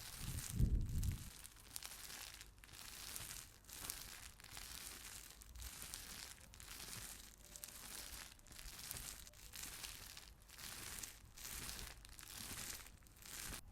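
Crystal roller rolled back and forth over rough natural stone: a gritty, scratchy rasp in repeated strokes, about one a second. There is a louder low bump in the first second.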